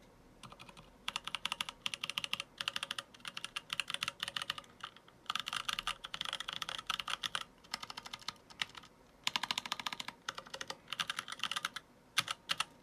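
Mechanical keyboard typing: unlubed NovelKeys Blueberry tactile switches in an aluminium Ninja87 keyboard with PBT keycaps, clacking in fast bursts with short pauses. Near the end come a few louder, separate key strikes.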